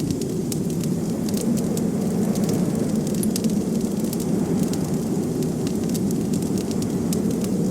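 Wood fire crackling, with frequent small sharp pops and snaps, over a steady low rush of blizzard wind.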